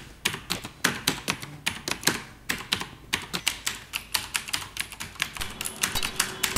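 Computer keyboard being typed on: quick, uneven plastic key clicks, several a second.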